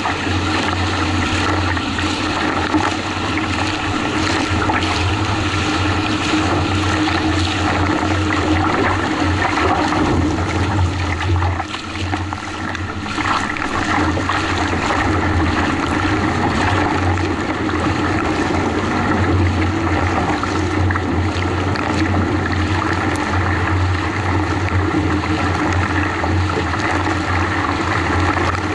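Water rushing and splashing around an NK Nitro 600 kayak as it is paddled through choppy waves, under a steady low rumble, dipping briefly about halfway through.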